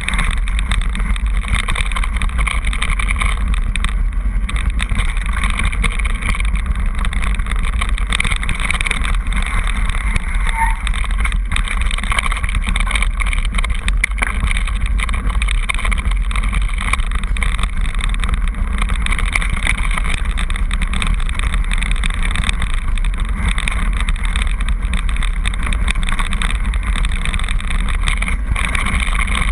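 Steady rumble and rush from a mountain bike riding down a stony gravel track: tyres on loose rock and wind on the bike-mounted camera's microphone, with a few faint rattling ticks.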